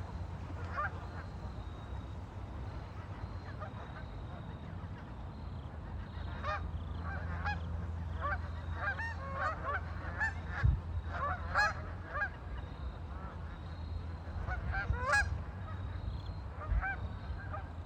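Waterfowl on a lake calling: a flurry of many short calls in the middle, a few more near the end, over a steady low hum.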